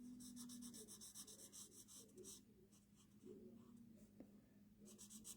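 Faint, rapid back-and-forth strokes of colouring on paper, in a run over the first two seconds and another starting near the end.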